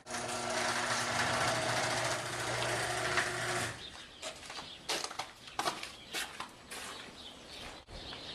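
A small motor runs steadily, then cuts off suddenly about three and a half seconds in. After that come irregular crunching steps through deep snow.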